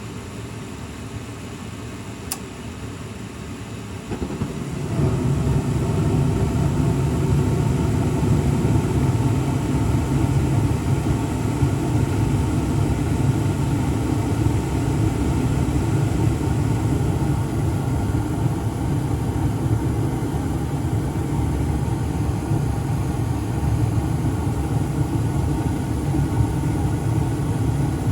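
1995 Carrier 80% gas furnace starting up: the inducer motor runs, a single click sounds about two seconds in, and about four seconds in the burners light, swelling into a steady low rumble that holds.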